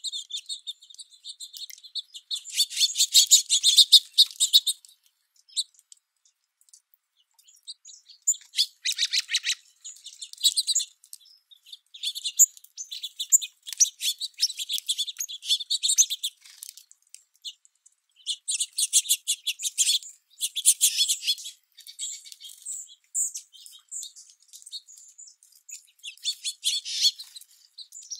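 Small songbirds chirping and twittering in bursts of rapid high notes, each burst lasting a second or a few seconds, with short quiet gaps between.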